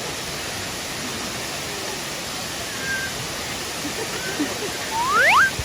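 Steady rushing of a waterfall. About five seconds in, a short, sharp rising squeal cuts through it.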